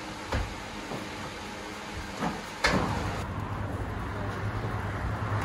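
Scattered soft thuds as rounds of patir bread dough are set down on a plastic-covered table. About two and a half seconds in, these give way to a steady low rumble and hiss.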